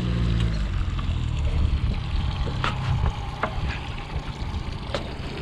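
A jon boat's motor running with a low, steady hum that weakens about half a second in and dies away by about three seconds, leaving water and wind noise with scattered small knocks.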